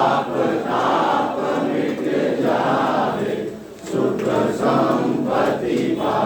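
A crowd of voices singing a devotional aarti together, in sustained phrases of a second or so with short breaks between them.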